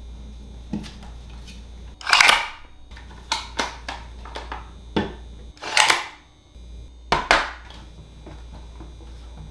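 Curved wood-and-brass pieces being handled and fitted together on a tabletop: a string of clacks and knocks, the loudest about two seconds in and again near six seconds, with two quick clacks just after seven seconds as the halves join into a ring.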